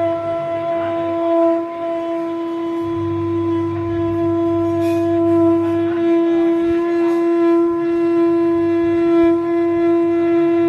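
Conch shell (shankh) blown in one long, unbroken note at a steady pitch with strong overtones, held without a break for a breath.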